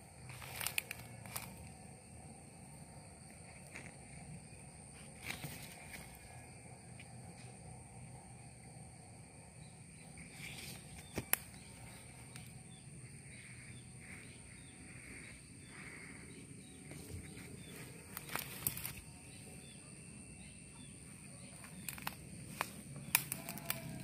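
Footsteps and the rustle of leaves and twigs, with a handful of sharp crackles, over quiet rural ambience holding a steady high-pitched whine and faint bird chirps.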